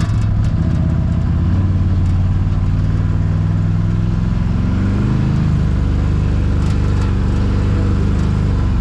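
Can-Am Maverick side-by-side's engine running under way, its pitch climbing about four seconds in, holding, then dropping near the end.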